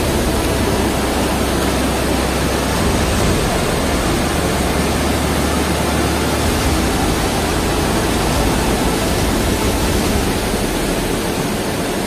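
Steady rushing of the Vazhachal waterfall and its rapids close by, an even wash of water noise; a low rumble underneath drops away about halfway through.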